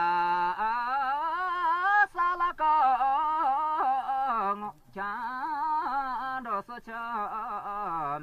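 A solo voice singing a Buddhist mantra chant in long held notes that waver and slide in pitch, with a short pause about halfway through.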